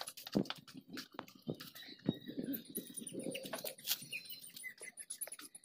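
Faint scattered clicks and rustles, like a handheld phone brushing through leaves, with a few short faint bird chirps behind them.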